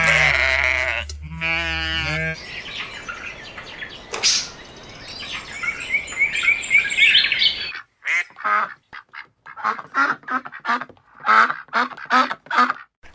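Animal calls in sequence: a wavering bleat at the start, then high bird chirps over a background hiss, then from about two-thirds of the way in a run of short, separate duck quacks.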